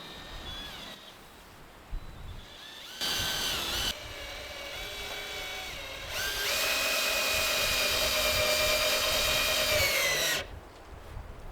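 Power drill running in two bursts: a short spin of about a second, then a longer steady whine of about four seconds whose pitch sags slightly just before it stops.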